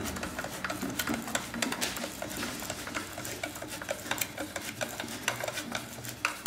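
Phillips screwdriver doing up a screw in a coffee grinder's doser assembly: rapid, irregular small clicks and scrapes of metal on metal.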